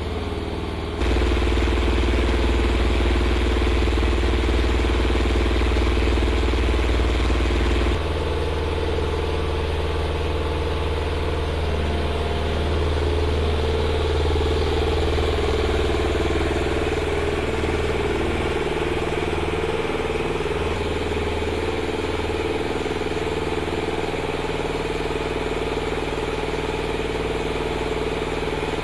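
Munitions lift truck's engine idling steadily, a constant low hum. It steps louder about a second in and drops back a little about eight seconds in.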